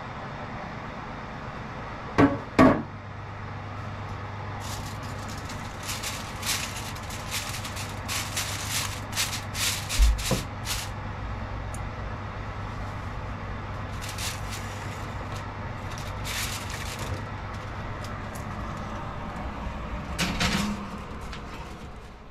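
Aluminium foil crinkling in repeated short bursts as it is wrapped and crimped over a glass baking dish, over a steady low hum. Two sharp knocks come about two seconds in, a dull thump about ten seconds in, and a clunk near the end as the oven is opened.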